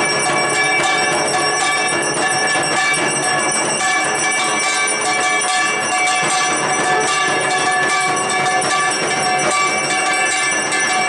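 Puja hand bells ringing continuously through an arati (lamp-waving worship), several ringing tones held and overlapping without a break.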